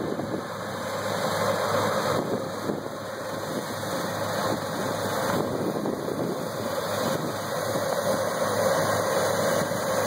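New Holland CR9070 Hillside combine running steadily while harvesting dry peas: a continuous machine noise with a steady hum.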